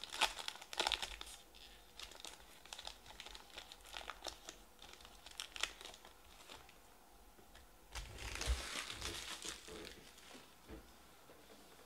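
Foil wrapper of a Panini Stars & Stripes baseball card pack crinkling and tearing as it is ripped open and peeled off the cards, in many small crackles. A louder stretch of crinkling comes about eight seconds in.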